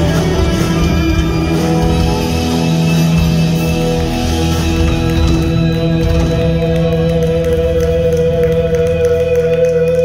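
Blues-rock band playing the closing bars of a song, with electric guitars, bass and drums. About halfway through, a harmonica holds one long high note over the band.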